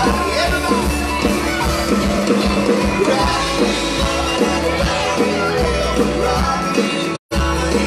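A live band playing, with electric and acoustic guitars and a lead vocal. The sound cuts out for a split second about seven seconds in.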